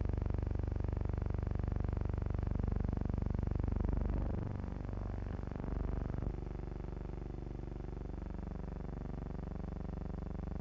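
Propeller aircraft's engines droning heard from inside the cabin, with a wavering, beating pitch as the engines drift in and out of step.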